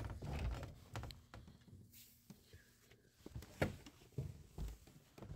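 Irregular soft thuds and light knocks of a person moving about and stepping through a cluttered room, with a cluster of thuds near the start and a few more further on.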